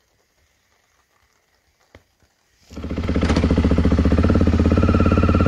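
Near silence, then about two and a half seconds in a BMW F650GS Dakar's single-cylinder engine comes in loud and close, idling steadily with a rapid, even beat.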